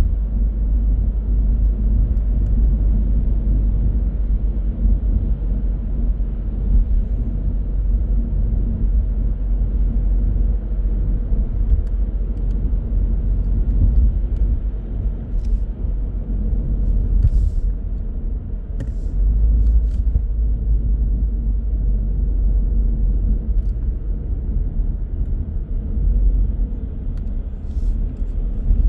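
A car driving on city roads: a steady low rumble of tyres and engine that stays even throughout. A few faint clicks come through about halfway in.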